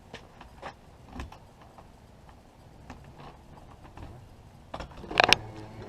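Scattered light clicks and knocks, then a louder cluster of sharp clicks and clatter about five seconds in.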